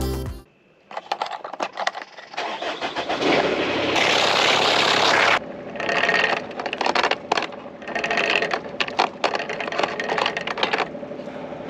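A boat engine starting and then running, with irregular rattling and clicking and a loud noisy stretch around the middle.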